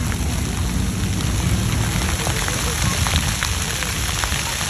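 Fountain water jets falling and spattering onto the wet stone of a splash pad: a steady patter of many drops, with children's voices in the background.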